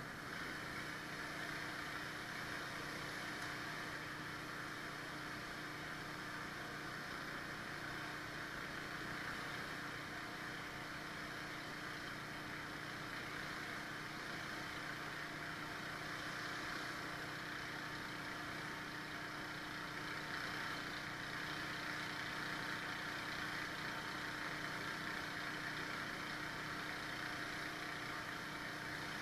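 Pressure washer engine and pump running steadily, a constant hum with a steady hiss of high-pressure water from a surface cleaner working the concrete.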